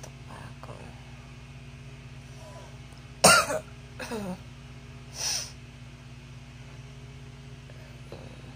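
A woman coughs sharply once about three seconds in, followed by a shorter throaty sound and a breathy exhale, over a steady low hum.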